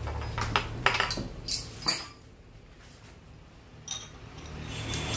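Metal hand tools, an Allen key and a spanner, clinking and knocking on a table top: several sharp clinks in the first two seconds and one more later. A low steady hum stops about two seconds in.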